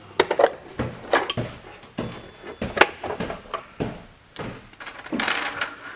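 Safety side covers of a Gene Cafe CBR-101 coffee roaster being unclipped and pulled off: a series of clicks and knocks, with one sharp snap about three seconds in and a brief scraping slide near the end.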